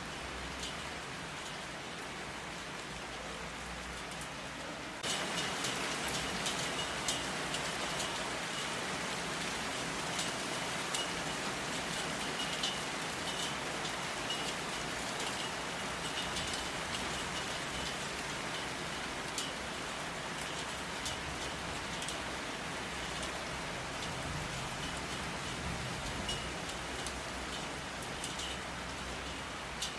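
Steady rain falling, with many small drop ticks over an even hiss; it gets abruptly louder about five seconds in and then holds steady.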